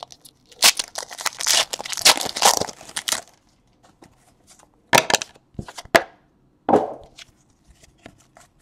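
Foil trading-card pack wrapper being torn open and crinkled for about two and a half seconds, then a few sharp clicks and a duller knock as the cards are handled.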